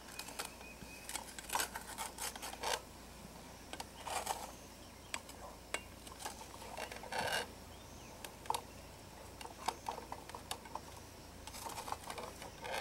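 A spatula scraping and knocking in a small non-stick frying pan while flipping fried eggs: a run of short scrapes and clicks, with a couple of longer scrapes about four and seven seconds in.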